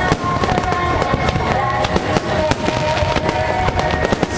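Aerial fireworks bursting in quick succession, a dense run of bangs and crackling, with music with held notes playing underneath.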